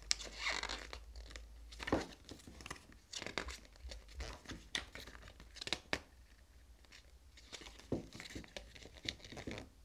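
Glossy pages of a mediabook booklet being turned and handled: irregular paper rustles and crinkles with short sharp page snaps, dying away just before the end.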